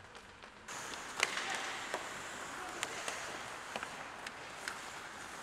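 Ice hockey play: a steady hiss of skates on the ice, broken about half a dozen times by sharp clacks of sticks and puck. The sound jumps louder less than a second in.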